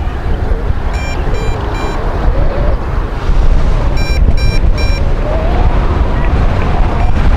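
Wind buffeting the microphone with a steady low rumble, while the MJX Bugs 2W drone's transmitter sounds two sets of three quick warning beeps, about a second in and about four seconds in, with the link to the drone lost.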